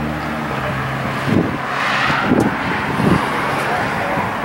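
A car engine idling, with uneven louder pulses about once a second from about a second in.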